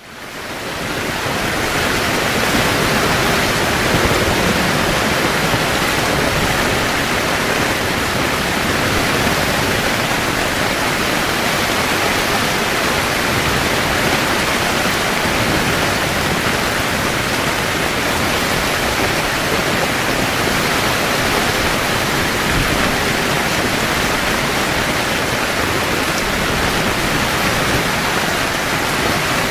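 Heavy rain falling steadily on a camping tent, an even hiss of water that fades in over the first couple of seconds.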